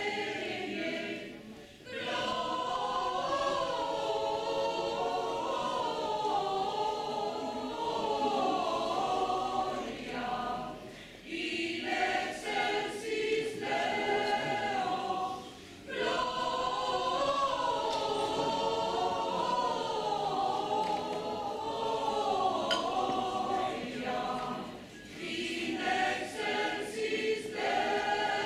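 Mixed choir of men's and women's voices singing, in long phrases broken by a few short pauses.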